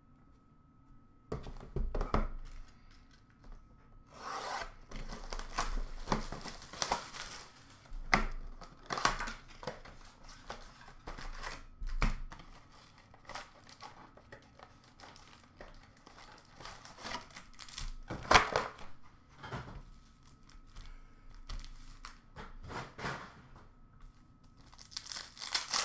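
Cardboard trading-card box and its plastic wrapping being torn open and handled by hand: irregular tearing and crinkling, cardboard rustling and a few sharp knocks. It starts about a second in.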